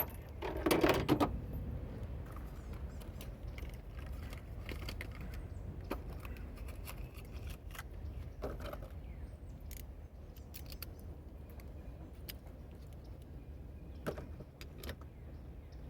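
Metal hand tools and parts clinking and clicking during engine work, with one louder clatter about a second in and scattered small clicks after it.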